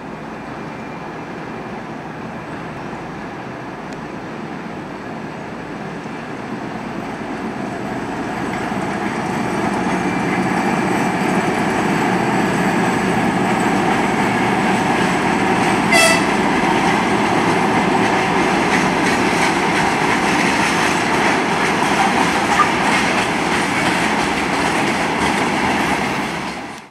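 A 2M62 twin-section diesel locomotive, with two-stroke diesel engines, passes hauling a freight train: a steady engine drone mixed with the rolling noise of the wagons, growing louder over the first ten seconds or so as it comes close. About sixteen seconds in there is one brief sharp sound, the loudest moment.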